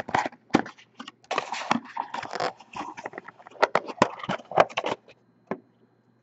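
Cardboard box and paper sleeve rustling and scraping as an encased autographed trading card is slid out, with several sharp clicks and taps of its hard plastic case. The handling stops about five seconds in, followed by one last click.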